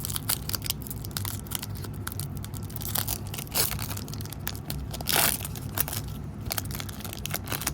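Foil wrapper of a 1998 Bowman trading card pack being torn open and crinkled: a run of crackles with a longer rip about five seconds in.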